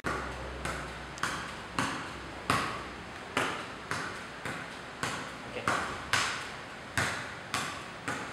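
Football being juggled keepy-uppy with bare feet and head: a steady run of sharp thuds, about one every two-thirds of a second, each with a short echo.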